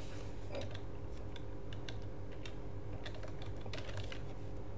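Computer keyboard being typed on: a run of faint, irregular key clicks, over a steady low hum.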